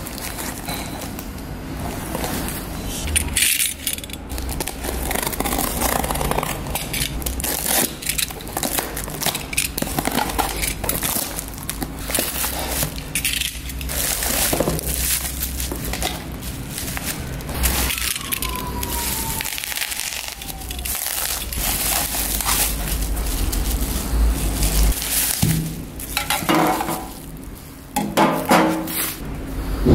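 Cardboard parcel being torn open and plastic bubble wrap crinkling and rustling as it is unpacked by hand, in irregular bursts. Near the end, metal gas cans clink and knock as they are set down.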